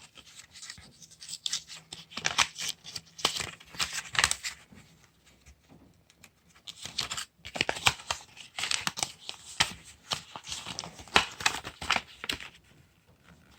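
Packaging rustling and crinkling as items are dug out of a torque wrench's box, irregular scratchy handling noise in two stretches with a short lull between.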